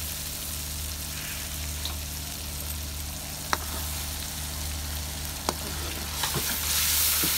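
Chopped onion, tomato, garlic and ginger sizzling in oil in a stainless steel wok as the masala is fried down, stirred with a steel ladle that clicks against the pan a few times. The sizzle grows louder near the end, over a steady low hum.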